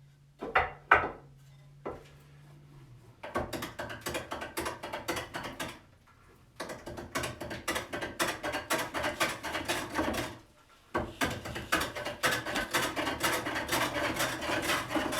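Pole lathe at work: the treadle-driven wood spinning back and forth against a hook tool, heard as three long runs of rapid ticking and rattling, after a few sharp knocks in the first two seconds.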